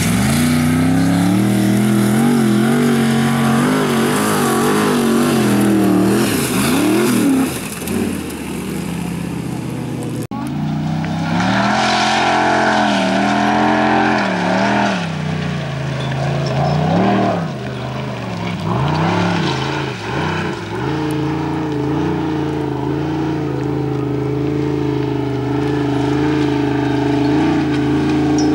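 Formula Offroad competition car's engine revving hard, its pitch rising and falling over and over with the throttle. There is a sudden break about ten seconds in, then more revving, and from about two-thirds of the way through a steady held note.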